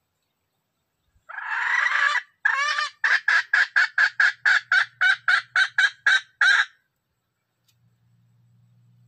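Red junglefowl rooster calling loudly: one long harsh note, a shorter second note, then a fast, even run of about fourteen short clucks at roughly four a second.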